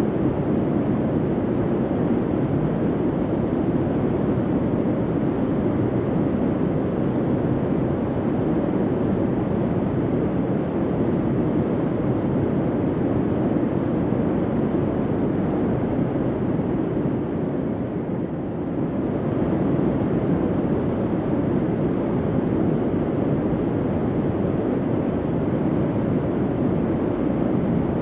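Steady, low rumbling bunker hum, an even rushing drone without distinct tones, dipping slightly about two-thirds of the way through.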